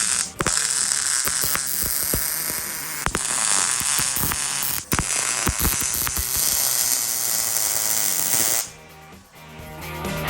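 Vulcan OmniPro 220 MIG welder running solid wire under 75/25 argon/CO2 gas on 1/8-inch steel. The arc makes a steady crackling sizzle full of spatter pops, breaks briefly twice, then cuts off near the end.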